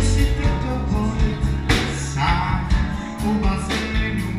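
Live band music with a drum kit and electric guitar, played at a steady beat.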